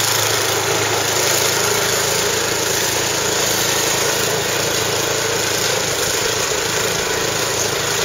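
Walk-behind snowblower's gas engine running steadily as it clears snow and throws it from the chute, a constant engine hum under an even hiss.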